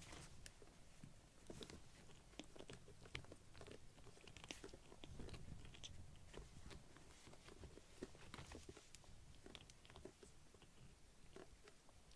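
Faint, scattered small clicks and rustles of kittens playing: paws and claws scuffing on fleece blankets and a cardboard box.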